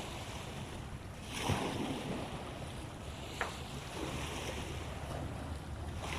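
Steady wind and sea-water noise, with wind on the microphone. The water sound swells briefly about a second and a half in, and there is a short click a little after three seconds.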